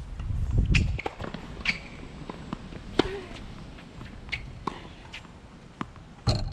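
Tennis balls being struck by a racket and bouncing on a hard court: a series of separate sharp knocks, the loudest about three seconds in and another strong one near the end, with a low rumble in the first second.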